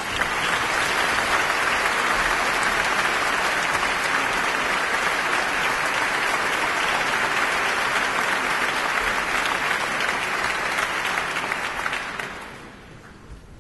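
Concert-hall audience applauding steadily, then dying away about twelve seconds in.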